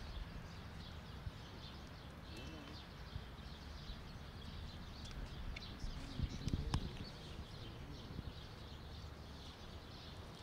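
Quiet outdoor background with faint scattered bird chirps. A brief, louder muffled sound comes about six to seven seconds in.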